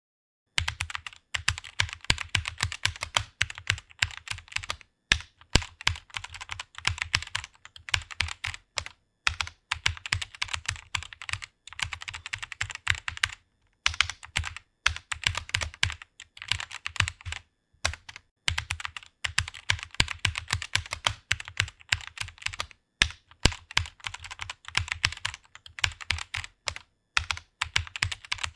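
Typing on a computer keyboard: rapid keystrokes in quick runs, broken by brief pauses every few seconds.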